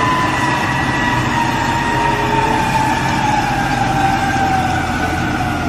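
Heavy diesel container forklift running as it drives, a steady low engine rumble with a high whine that slowly falls in pitch.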